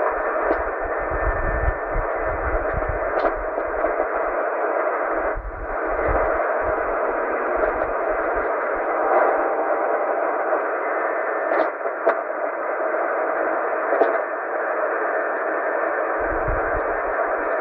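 Shortwave receiver (Tecsun PL-990) in sideband mode giving a steady static hiss with a few sharp crackles. The channel is open with no voice on it, between transmissions.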